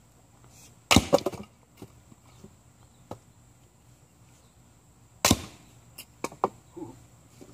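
Snow & Nealley axe chopping kindling on a wooden chopping block: two sharp strikes into the wood about four seconds apart, each followed by a short clatter of wood.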